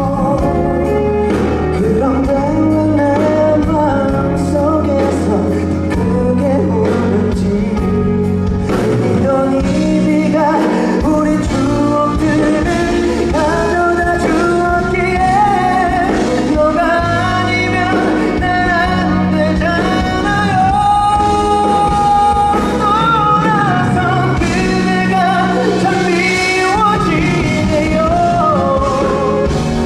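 A man singing a ballad live with a band: sung melody over sustained chords, bass and light drums, heard as concert sound through the hall.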